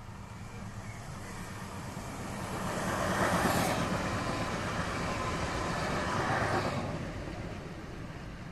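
Bombardier Talent 2 (class 442) electric multiple unit passing close by: its rolling noise swells over the first three seconds, holds for about four seconds as the cars go by, then fades.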